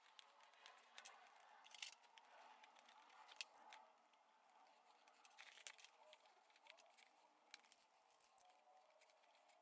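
Near silence with faint scattered clicks and short scrapes: hands and a small pointed tool working the leather lining into the bag's metal frame.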